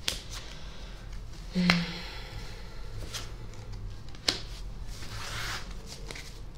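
Tarot cards being handled on a cloth-covered table, slid and laid down. There are a few sharp flicks and taps, and a soft rustling swish near the end.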